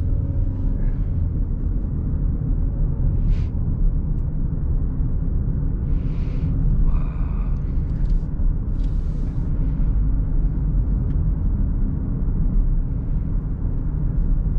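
Steady low rumble of road and drivetrain noise inside the cabin of a Genesis GV70 SUV while it is driven, with a few short, faint hissing sounds around the middle.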